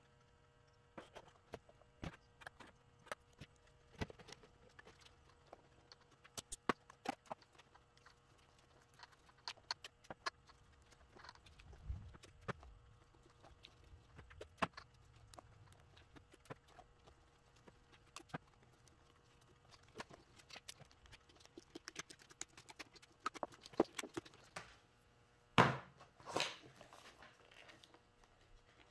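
Irregular small clicks, taps and rustles of hands handling wires, a wiring harness and small tools on a workbench, over a faint steady hum. A louder rustle and scrape of the harness comes near the end.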